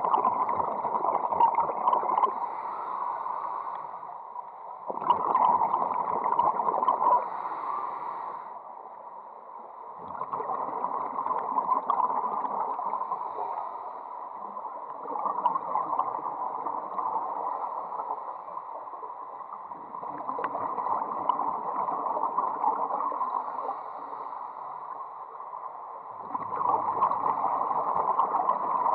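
Underwater sound picked up through a camera housing: bubbling, rushing water noise coming in bursts of three to four seconds, about every five seconds.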